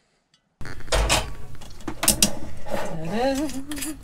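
Whiskey bottle being opened by hand: a knock, then sharp clicks of the cap and glass as the top is twisted off, with a short wavering squeak-like tone near the end.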